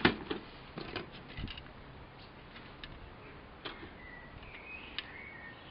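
Plastic model-kit sprues clicking and rattling in a cardboard box as a hand moves them, loudest in the first second and a half, then a few light ticks. A small bird chirps in the background around four to five seconds in.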